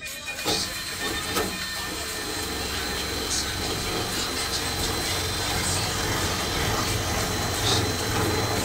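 Cordless drill running steadily on a bolt of a front-loading washing machine's front balancing weight. A few sharp clicks come in the first seconds, and a low rumble grows stronger near the end.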